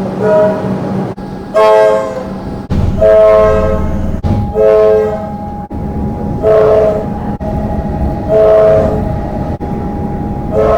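Comeng train horn sounding a string of short blasts, about seven, each under a second long, with the train's running noise beneath.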